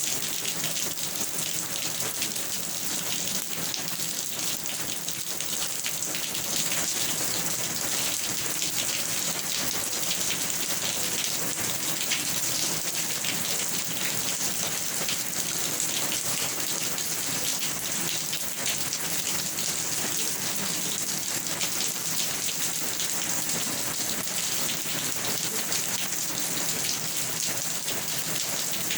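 Steady rain falling, a dense hiss of drops with fine individual drop ticks throughout.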